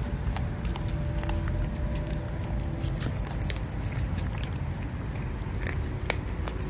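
Lycan Shepherd puppies chewing and tearing at a raw whole chicken carcass: scattered wet clicks and crunches of small teeth on raw meat and bone, over a steady low rumble.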